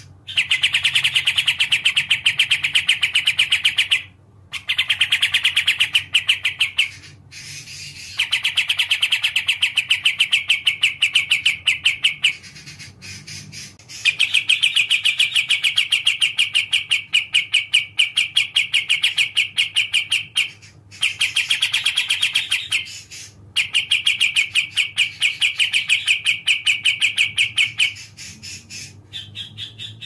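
Kapas tembak (olive-winged bulbul) singing in long runs of fast, evenly repeated chirping notes, each run lasting several seconds with short pauses between. The song gets quieter near the end.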